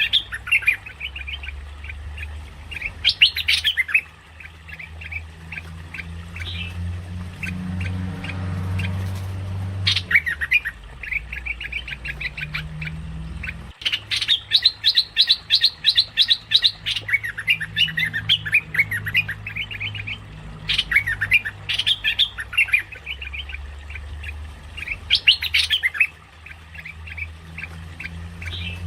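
Merbah lekir bulbul lure calls: runs of rapid, choppy, squawky chattering that come again every few seconds, the longest run about halfway through, over a steady low hum.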